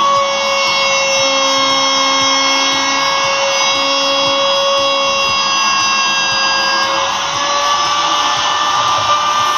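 A power tool's motor running steadily with a high-pitched whine over a hiss, its pitch shifting slightly about seven seconds in.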